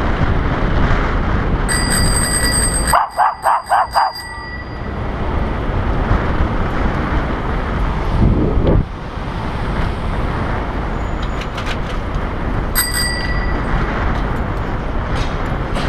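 Bicycle bell rung about two seconds in and again near the end, over steady wind and road noise from riding in city traffic. Just after the first ring comes a quick run of five short, sharp sounds.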